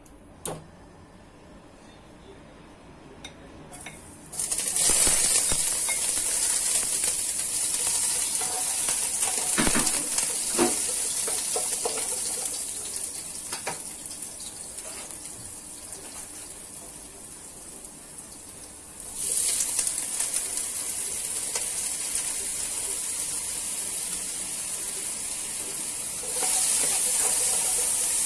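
Hot oil in a nonstick wok sizzling as chopped ingredients are dropped in. The sizzle starts suddenly about four seconds in, slowly dies down, and flares up again twice as more is added, with a few sharp spatula knocks on the pan in the middle.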